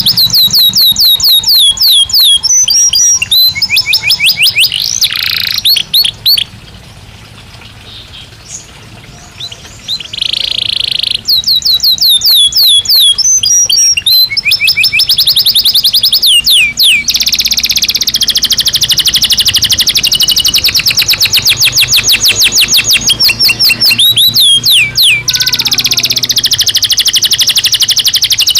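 Domestic canary (Belgian canary) singing: fast trills of repeated, downward-sliding whistled notes, a few seconds of near pause about a quarter of the way in, then long unbroken rolling trills through the second half.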